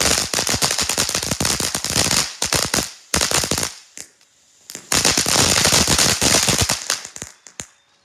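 Ground fountain firework spraying sparks with dense, rapid popping. The pops stop briefly about four seconds in, start again about a second later, then thin out and end near the end.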